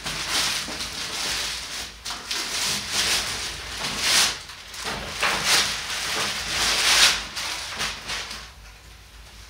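Rustling and crinkling of a bicycle bag's storage cover as the bag is handled and taken out of it, in uneven surges that die down near the end.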